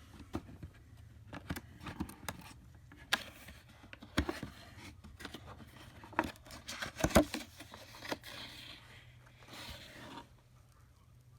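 Scattered clicks and knocks of metal axle-puller kit parts being picked up and set down, loudest about seven seconds in, followed by two soft paper rustles around eight and ten seconds in.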